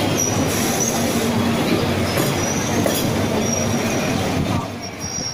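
Suburban electric local train (EMU) running directly beneath, its steel wheels rumbling over the rails with a faint, intermittent high squeal. The sound eases off near the end as the train draws past.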